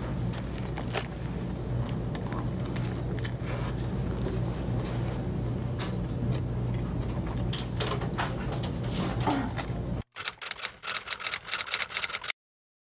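Close-up eating sounds: biting and chewing a bread sandwich, with scattered clicks and crinkles from the plastic bag it is held over, over a steady low hum. About ten seconds in, the hum drops away and a quicker run of sharp clicks and crackles follows, then the sound cuts to silence.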